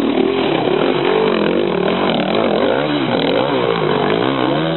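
Enduro motorcycle engine revved up and down again and again, its pitch rising and falling in quick repeated surges as the rider works the throttle to get the stuck bike over the rocks.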